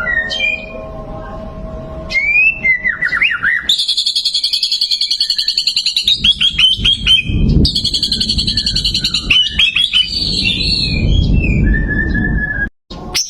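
White-rumped shama (murai batu) singing: a few clear whistled notes and slurs, then long, fast rattling trills twice over, the rapid bursts that bird keepers call "tembakan", and a short held whistle near the end.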